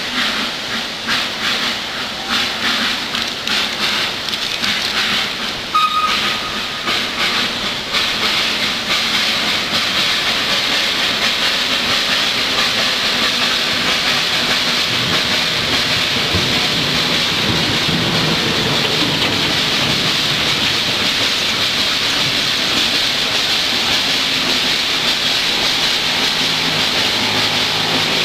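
Nilgiri Mountain Railway steam locomotive: rhythmic beats for the first several seconds, with a brief high peep about six seconds in. From there on a loud, steady hiss of steam being released.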